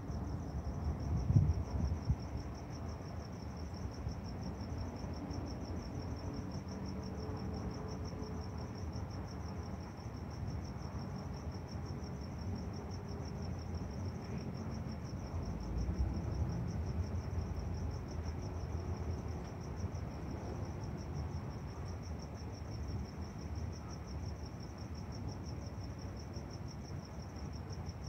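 Crickets chirping in a steady, rapid pulse, over a low rumble that is loudest in the first couple of seconds and swells again about halfway through.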